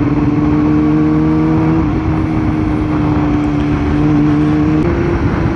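Yamaha R6's inline-four engine running at a steady cruising note while riding, its pitch creeping up slightly with small steps about two and five seconds in, over a constant rushing noise.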